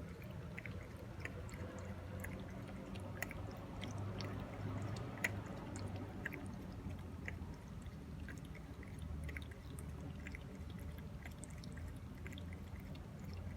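A cat feeding: small wet clicks and smacks of its mouth, irregular and a few a second, over a low steady hum.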